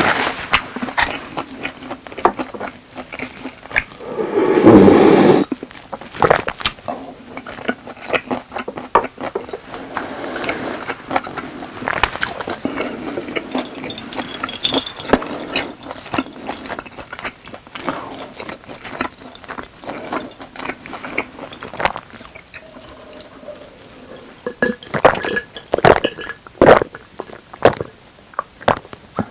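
Close-miked eating of spicy boneless chicken with rice: chewing, with a spoon clicking and scraping against the bowl. A louder rush of sound comes about four to five seconds in.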